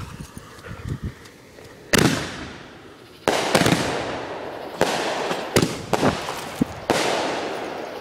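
A five-round firework mortar cluster firing its shells one after another on a chained fuse. There are about five sharp bangs, the first about two seconds in and the rest roughly a second apart, each trailing off slowly, with smaller crackles in between.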